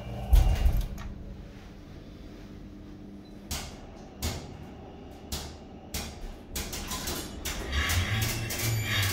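Elevator car: a thump just after the start, then a faint steady hum while it travels, broken by several sharp clicks. Over the last two seconds its sliding doors rumble open.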